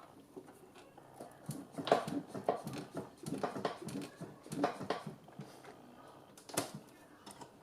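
Irregular plastic clicks and rustling from hands working custom sleeved PC power cables and a connector into place. A cluster of clicks comes in the middle, then one sharper click near the end.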